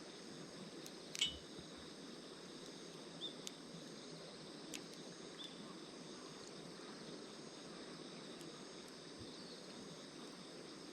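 A small fire burning in a compact tabletop grill, giving a few sharp crackling pops, the loudest about a second in. Underneath is a faint, steady outdoor hum of insects.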